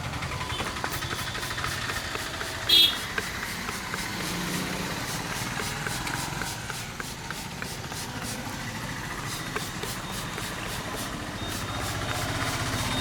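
Street traffic running steadily, with a run of faint sharp clicks and one brief, loud, high-pitched sound about three seconds in.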